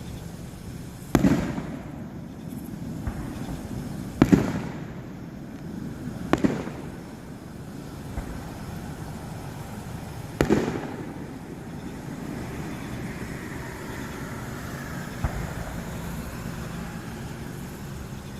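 Fireworks going off: four booms spread over about ten seconds, the third a quick double, each trailing off in a low rolling echo.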